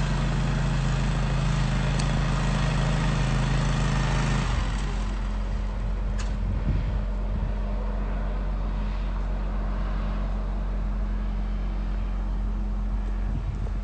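A large engine running steadily, easing down to a lower, quieter drone about four and a half seconds in.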